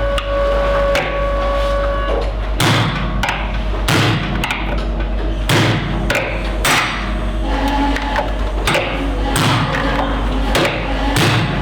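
Hammer blows striking a laminated steel padlock again and again to shear off its rivet heads. The blows begin about two and a half seconds in and fall one or two a second in uneven runs.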